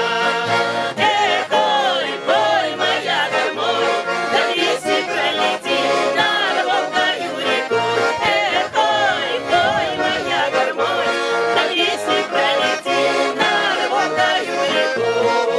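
Two button accordions and an acoustic guitar playing a Russian folk song together, with a singing voice wavering and sliding over the accordion chords.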